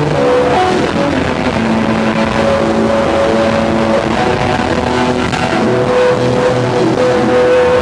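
Electric guitar lead played live over bass guitar, in long sustained notes that shift every second or so, settling onto one long held note from about six seconds in.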